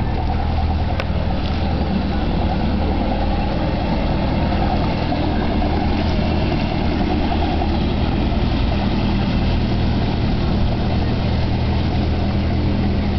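A small fishing boat's engine running steadily as the boat motors off, giving an even low hum.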